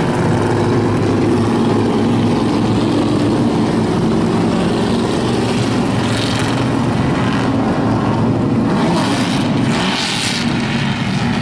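A field of stock cars racing on a short oval, many engines running hard together in one dense, steady drone.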